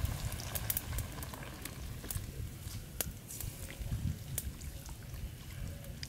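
Softshell turtle stew simmering in a wok over a wood fire, with scattered sharp pops and crackles over a low rumble.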